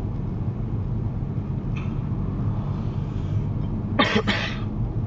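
Steady low rumble of a car's engine and road noise heard inside the cabin, with a short cough about four seconds in.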